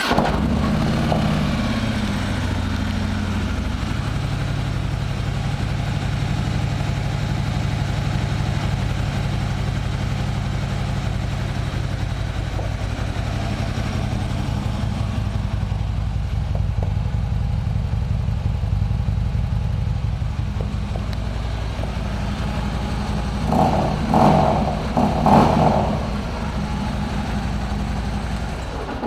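2016 Harley-Davidson Street Glide's V-twin through Screaming Eagle pipes, freshly started: it runs at a fast idle for the first few seconds, then settles into a steady idle. Near the end it gets two quick throttle blips, then is shut off.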